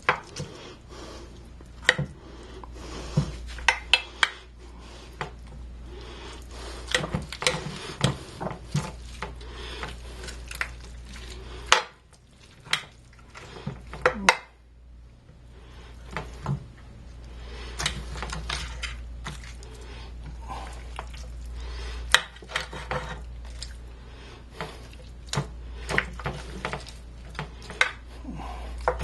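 Kitchenware being handled: irregular clinks, knocks and scrapes of pots, lids and utensils, over a steady low hum.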